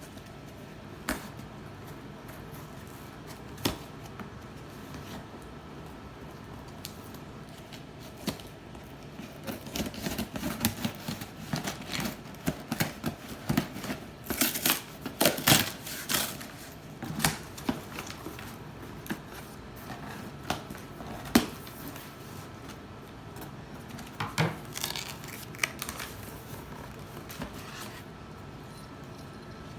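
A cardboard shipping box being opened and unpacked by hand: scattered knocks and scrapes, with a busy run of handling noise about ten to seventeen seconds in and another shorter one near twenty-five seconds.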